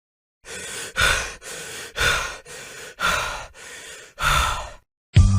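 Heavy breathing sound effect: about four rhythmic breaths, about one a second, each a softer draw followed by a louder puff.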